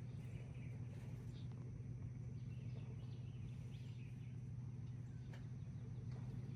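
Faint, scattered bird chirps over a steady low background hum; no gunshot.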